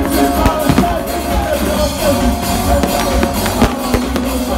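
Loud live band music with drums playing through a stage sound system, heard from among the crowd.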